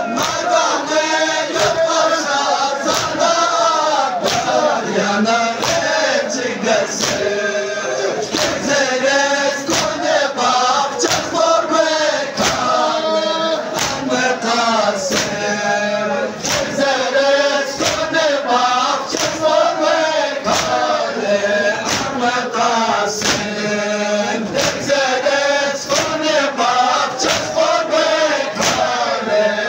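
A crowd of men chanting a Balti noha, a Shia mourning lament, in unison, over a steady, even beat of open-hand chest-beating (matam) slaps.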